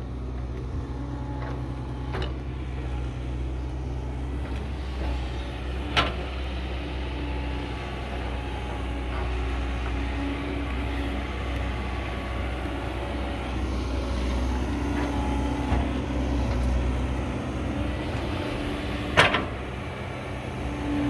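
Caterpillar 312 hydraulic excavator's diesel engine running steadily as it digs earth, with a humming tone that comes and goes as it works. Two sharp knocks stand out, one about six seconds in and a louder one near the end.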